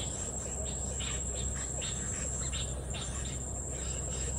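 Crickets in the rice fields trilling in a steady high-pitched drone, with short raspy chirps repeating two or three times a second that fade out about three seconds in, over a low steady rumble.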